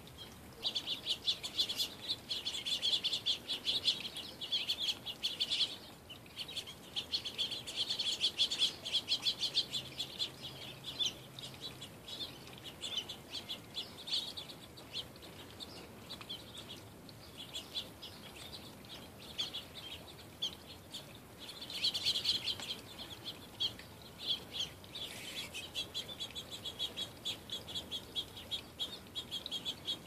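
A flock of small songbirds at backyard feeders chirping and chattering: rapid high twittering that swells in bursts, loudest a few seconds in, around eight seconds and again a little past twenty seconds.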